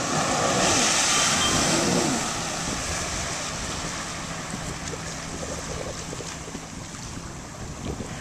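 Sea-Doo RXP-X personal watercraft running and throwing spray, then easing off to a low steady hum, with splashing water and wind on the microphone. The loudest part is in the first two seconds, and it fades gradually after.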